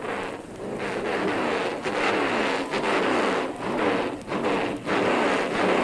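Drag-racing car engine running loud, its pitch rising and falling again and again, with brief dips in loudness every second or so.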